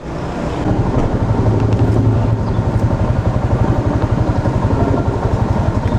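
Yamaha Sniper 150's single-cylinder engine idling with an even, steady pulse, its fuel injection freshly cleaned so that it no longer stalls.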